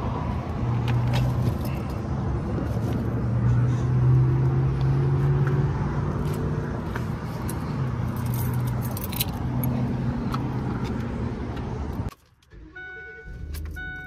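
Tool bags being handled and set down in a pickup truck's cab, with keys jangling and light knocks and rustling over a steady low hum. Near the end, after a cut, the Ford truck's warning chime sounds, a repeating electronic tone.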